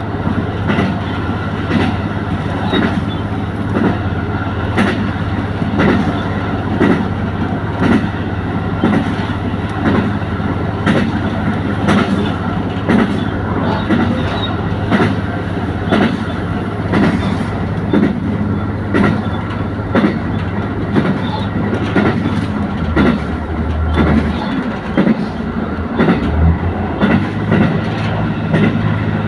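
Train running at speed, its wheels clacking over rail joints about once a second above a steady low running hum; the low note shifts briefly late on.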